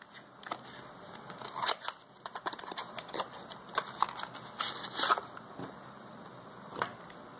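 Handling noise: small, irregular clicks, taps and rustles as phone parts and a small cardboard box are moved about on a wooden table, thickest over the first five seconds, with one last tap near the end.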